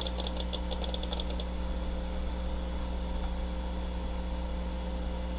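Steady low hum of the running computer setup, with a quick run of faint, high ticks in the first second and a half as the Amiga 500 loads ATalk 3 from its hard drive.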